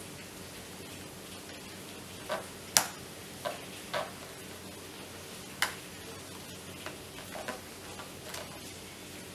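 Screwdriver working screws out of the plastic body of an electric kettle: scattered sharp clicks and taps of metal on plastic at irregular intervals, the loudest about three seconds in and another near five and a half seconds, over a low steady hum.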